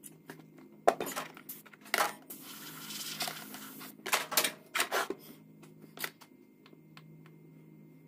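Sharp clinks and knocks of hard objects being handled and set down, with a hiss of about a second and a half in the middle, over a faint steady low hum.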